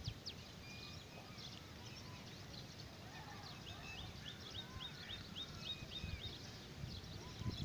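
Faint background birdsong from small birds: scattered high chirps and short notes, with a quick run of about eight high chirps around the middle.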